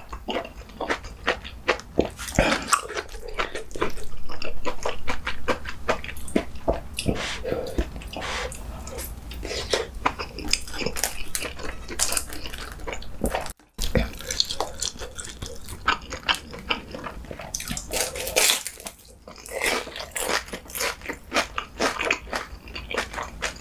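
Close-miked eating sounds: a person biting, chewing and crunching through food, including crisp battered fried vegetables, as a run of quick crackles and wet mouth clicks. The sound drops out for a split second about 14 seconds in.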